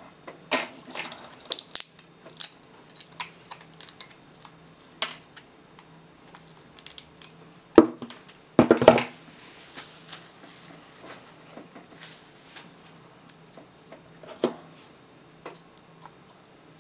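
Metallic clicks and clatter of 18650 lithium-ion cells and a pair of pliers being handled, as the cells of the battery pack are worked apart. The loudest moment is a sharp snap followed by a half-second scrape about eight seconds in.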